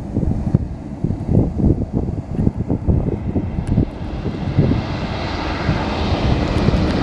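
Passenger hovercraft approaching, its engine and propeller noise rising steadily over the second half. Wind buffets the microphone with low gusty rumbles.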